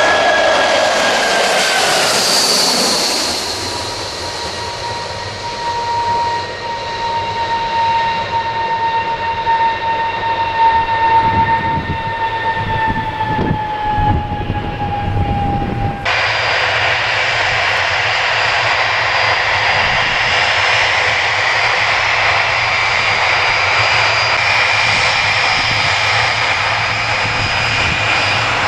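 Turbofan engines of a Boeing C-17A running with a loud whine of several steady high tones that slowly sink in pitch. About sixteen seconds in, the sound changes abruptly to a brighter, steady engine whine.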